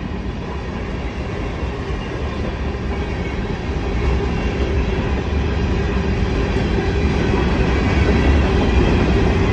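Covered hopper cars of a freight train rolling past at close range: a steady rumble of steel wheels on the rails that grows gradually louder.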